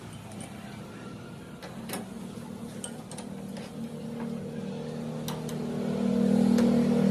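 A machine running with a steady hum that grows louder over the last couple of seconds, with a few scattered light clicks.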